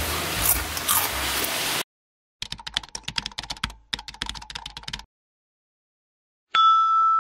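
Background music cuts off suddenly about two seconds in. After a short gap comes a rapid run of keyboard-typing clicks, a typing sound effect, lasting nearly three seconds with one brief pause. Near the end a bright chime starts and rings on.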